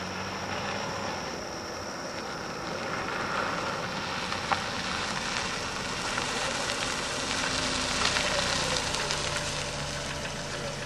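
A car driving slowly along a gravel road and coming up close: its tyres crackle on the loose gravel over the low running of the engine, loudest about eight seconds in.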